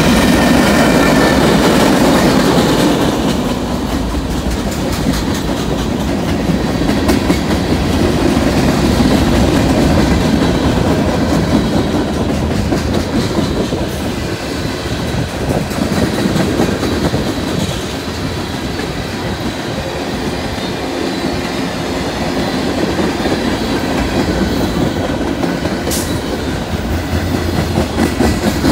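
Norfolk Southern mixed freight train's cars rolling past close by: a steady rumble of steel wheels on rail with continuous clickety-clack. A faint high wheel squeal sounds in the first few seconds.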